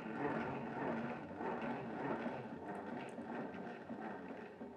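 Milling machine table traversing along its X axis on its feed screw, a steady mechanical running noise.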